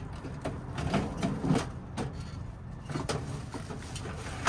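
Scattered clicks and knocks with rustling of plastic trash bags as a reach grabber tool pokes and picks through garbage in a metal dumpster. The loudest knock comes at the very end.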